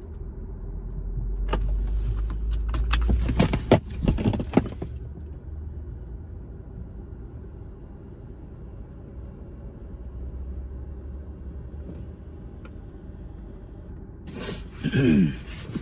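Crackling and rustling of takeout packaging being handled for about three seconds, over the low steady rumble of the idling car inside the cabin. A short murmur of voice comes near the end.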